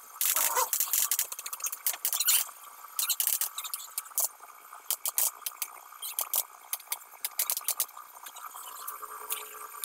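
Irregular sharp clicks and short scrapes, with a faint steady tone under them in the second half.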